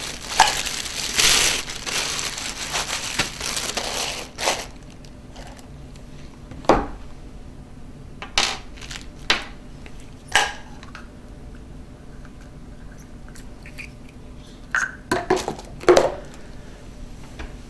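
Clear plastic wrapping crinkling as a rifle scope is pulled out of its bag, lasting about four seconds. Then scattered light knocks and clicks as the scope and its cardboard box are handled and set down on a wooden table, with a small cluster of knocks near the end.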